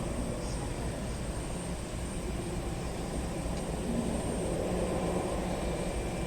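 Jet airliner engines running at a distance: a steady rumble with a thin high whine over it.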